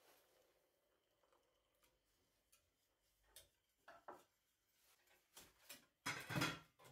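Wire whisk tapping and scraping against a stainless steel saucepan while stirring milk, at first a few faint scattered ticks, then a louder quick clatter of strokes near the end.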